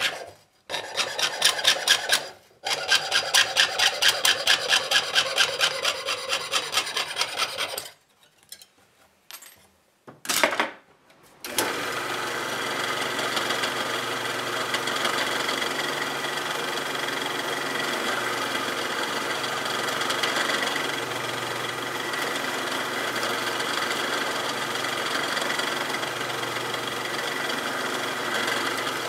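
Jeweler's saw blade cutting copper sheet in fast, even back-and-forth strokes. After a short pause, a drill press starts about eleven seconds in and runs steadily as its bit drills a hole through the copper.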